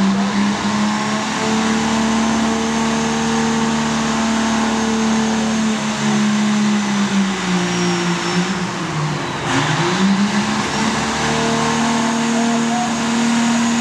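1996 Dodge Ram's 5.9-litre Cummins diesel engine held at high revs under load while pulling the sled. The revs sag about nine seconds in and then pick back up.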